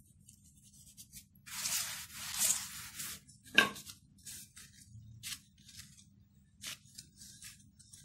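Hands rubbing and patting dusting flour over a stuffed paratha dough round laid on a paper sheet, making papery rustling and rubbing sounds for a second or two, followed by a few short, sharp taps and scrapes.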